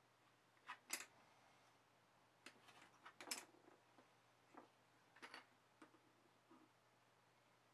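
Near silence with faint, scattered clicks and taps: small circuit boards and a screwdriver handled on a workbench.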